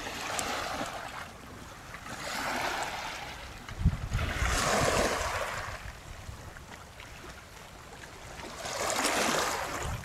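Small sea waves washing and lapping over the edge of a concrete causeway, coming in about four swells. A low rumble of wind on the microphone about four seconds in.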